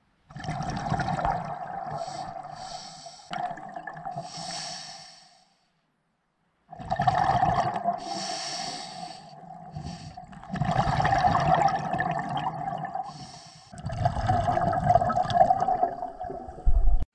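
Scuba diver breathing underwater through a regulator: long stretches of exhaled bubbles gurgling and rumbling, about four of them, split by short pauses where the diver inhales.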